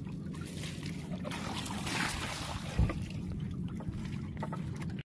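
A steady low rumble with water and wind noise aboard a small wooden outrigger fishing boat, with light handling clicks and one dull knock on the boat about three seconds in.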